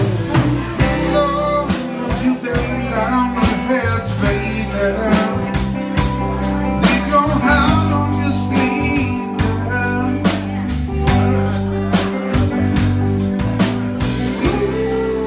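Live band playing: electric bass, electric guitars and a drum kit, the drums keeping a steady beat under a melody line that bends in pitch.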